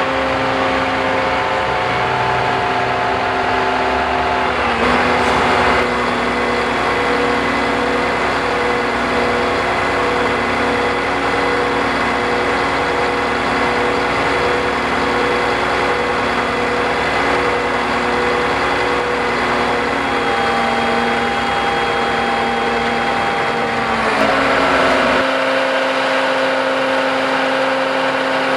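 Diesel engine of a cabover roll-off garbage truck running steadily while parked. Its pitch steps up about five seconds in, holds at the higher speed, and falls back to a lower, steady idle a few seconds before the end.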